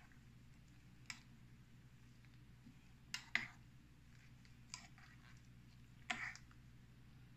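A handful of short, light clicks and taps, spaced a second or two apart, the last slightly longer, over a faint steady low hum.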